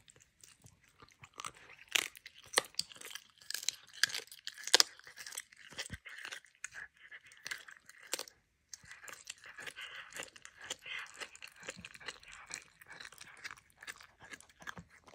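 Serval chewing and biting raw meat held in a hand: irregular wet smacks and crunching clicks, the loudest bites about two to five seconds in.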